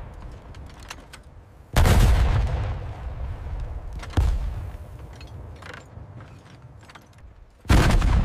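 Muzzle-loading cannon firing: three sudden booms, each followed by a dying rumble, one about two seconds in, a lighter one about four seconds in and another loud one near the end.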